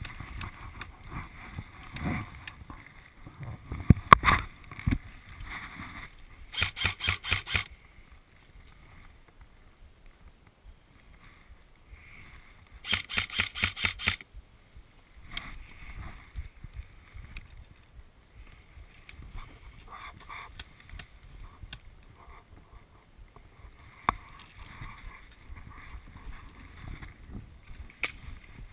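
Airsoft gun firing two short bursts of rapid automatic shots, each about a second long and some six seconds apart. A loud knock comes a few seconds before the first burst, with rustling and handling noise on a body-worn camera between.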